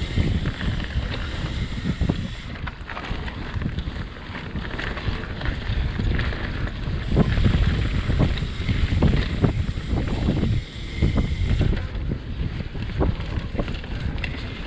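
Wind buffeting the microphone with a constant low rumble, from riding a mountain bike fast down a dirt trail. Frequent short knocks and rattles come through as the bike runs over rough ground.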